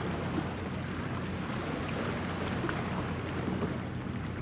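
Steady low drone of the helicopter destroyer JS Kaga (DDH-184), a gas-turbine warship, passing at a distance, mixed with wind on the microphone and the wash of water. A brief thump right at the end.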